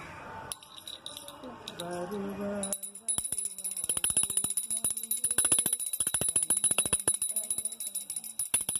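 A brass puja hand bell rung rapidly, starting about three seconds in: a quick run of clapper strikes over a sustained high ringing. Faint voices are heard before it starts.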